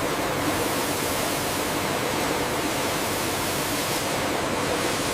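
Steady, loud rushing noise with no separate strokes or tones, like the din of processing machinery or running water.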